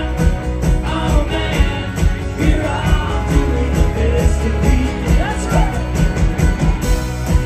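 Live rock band playing with electric guitars and a steady beat, a man singing lead into the microphone.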